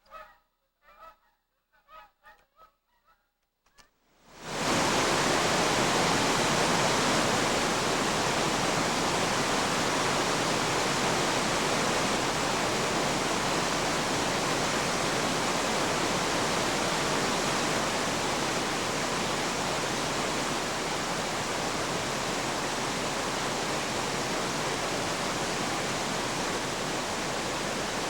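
Faint honking calls for the first few seconds, then a loud, steady rushing hiss starts abruptly about four and a half seconds in and runs on unchanged.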